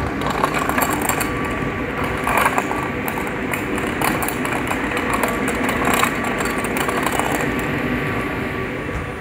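MI2N double-deck electric train standing at the platform, its onboard equipment giving a steady mechanical hum with a faint held whine and a few brief knocks.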